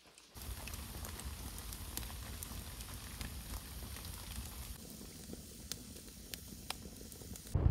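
Wood fire burning inside a clay oven: a steady rushing with a low rumble and scattered sharp crackles and pops.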